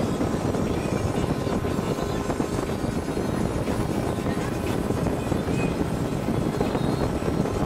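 Small passenger boat's engine running steadily at cruising speed, heard from on board: an even, low rumble with no breaks.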